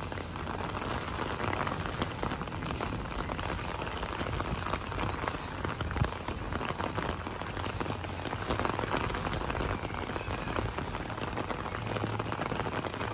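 Steady rain falling on a wet concrete roof, a dense patter of small ticks, with one sharp knock about six seconds in.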